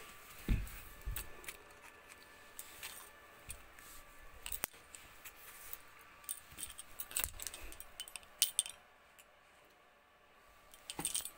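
Faint, scattered clinks and taps of metal kitchenware such as a steel plate and spoon, with a low thump about half a second in.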